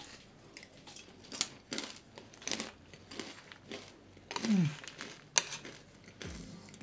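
A person chewing a mouthful of crunchy coated peanuts (NicNac's) close to the microphone, a series of irregular crunches, with a short hummed 'mm' about four and a half seconds in.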